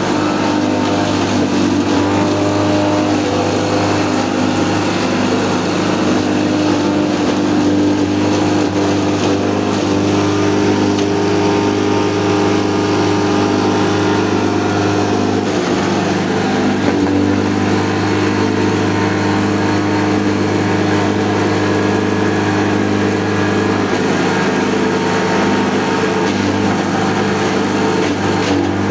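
Electric-motor-driven feed grinder running steadily under load while grinding organic waste into mash: a constant machine hum with a dense grinding noise over it.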